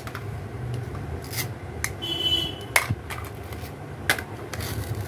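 Hard plastic toy fruit pieces being handled and set down: a few light clacks and knocks, with a short squeaky rub of plastic on plastic about two seconds in.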